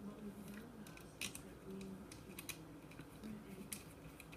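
Faint, scattered small clicks and taps as fingers handle the metal hanging-cable fittings and bolts on the back of an EcoTech Radion LED light.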